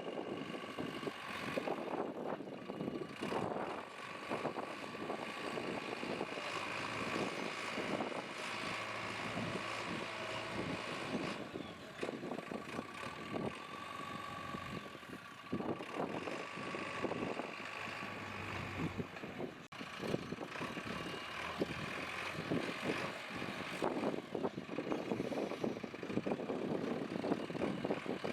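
JCB 3DX backhoe loader's diesel engine running steadily while the machine works, with irregular knocks and clatter.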